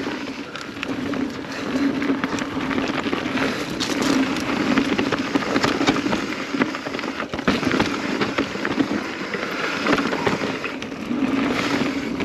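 Kona Process X mountain bike riding fast down a rough trail: tyres rolling over rocks and roots, with a constant clatter of small knocks and rattles and a steady low hum underneath.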